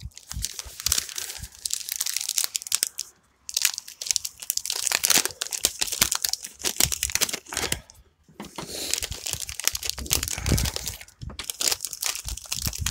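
A chocolate bar's plastic wrapper being torn open and crinkled, in several stretches of rustling with short pauses between.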